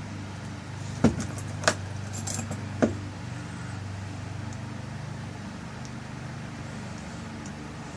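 Small metal clicks and clinks of a rekeyed lock cylinder's parts being handled and screwed back together: three sharp clicks in the first three seconds, then only a steady low hum.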